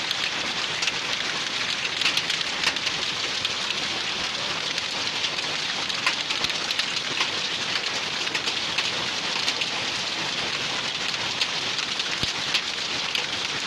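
Heavy rain falling during a hailstorm: a steady hiss with many sharp ticks of impacts on hard surfaces.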